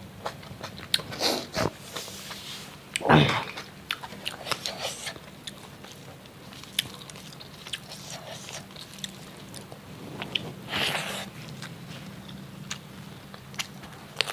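A person eating crunchy food close to the microphone, with repeated sharp crunching bites and chewing and a couple of louder bites about three seconds in and again near eleven seconds.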